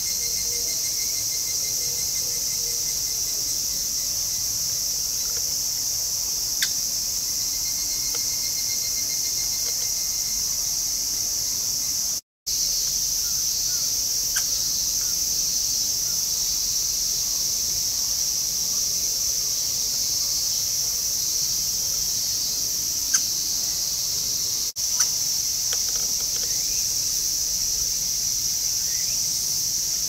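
Steady, high-pitched chirring of an insect chorus, with a fainter pulsing trill coming and going and a few small clicks. The sound cuts out completely for a moment about twelve seconds in.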